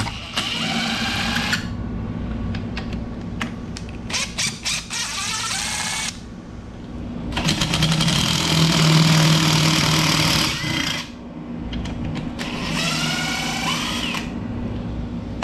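Cordless impact driver backing out the 13 mm bolts of an outboard lower unit's water pump housing. It runs in four separate bursts of rapid hammering with a motor whine, and the third burst is the longest.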